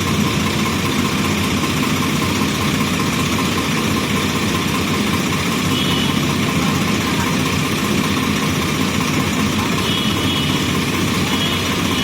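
Diesel engine of a JCB backhoe loader running steadily at a constant level.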